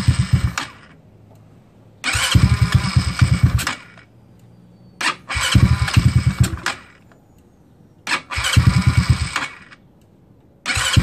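GY6 scooter's four-stroke single-cylinder engine turned over on its electric starter in repeated tries of a second or so, about every three seconds, on a cold start. Each time it quits again instead of running on: the engine is dying too early.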